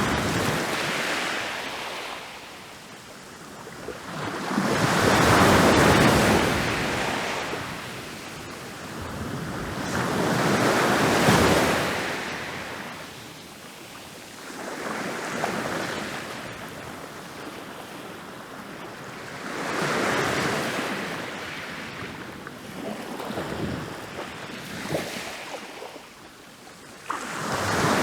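Ocean waves rolling in and breaking on a beach: the surf swells up and washes back down in repeated surges, roughly every five seconds.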